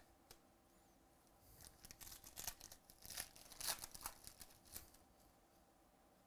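Foil wrapper of a trading-card pack being torn open, a run of sharp crinkling crackles lasting about three seconds.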